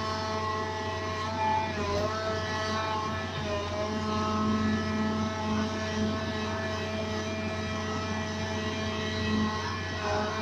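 Hitachi excavator's diesel engine running steadily with a hydraulic whine. Its pitch dips briefly a few times as the boom and bucket take load during the recovery of an overturned excavator.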